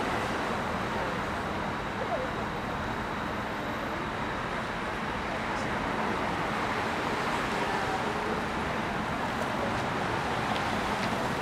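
Steady outdoor street noise with road traffic passing.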